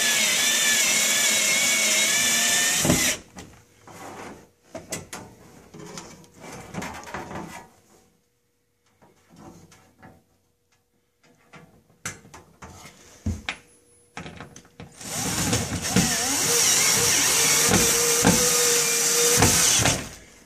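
Cordless drill driving a screw through a sheet-metal heat shield into the wall. The motor whine stops about three seconds in, a stretch of quieter clicks and handling follows, and the drill runs again for about five seconds near the end.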